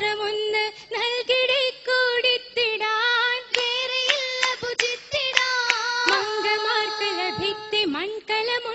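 High girls' voices singing an oppana song, a Mappila folk song, in long held and wavering phrases. Sharp hand claps keep time here and there, and near the end the voice slides sharply upward.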